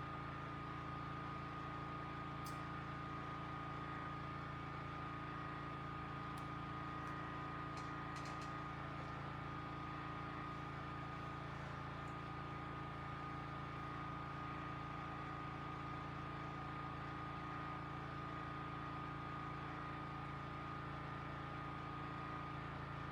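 A generator running steadily in the background, a constant hum with a thin steady whine above it. A few faint, light clicks come in the first half.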